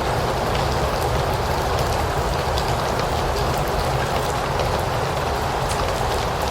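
Steady rain falling, an even hiss with scattered drop ticks and a low rumble underneath.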